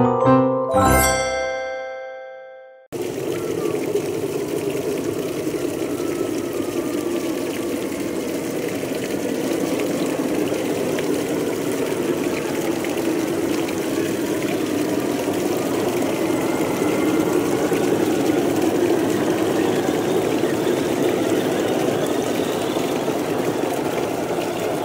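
A short musical chime that fades away, then, about three seconds in, a steady rushing noise like running water that carries on unchanged.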